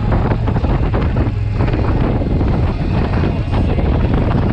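A 2020 Indian Challenger's V-twin engine running steadily at cruising speed, a constant low drone, with wind buffeting the microphone over it in ragged gusts.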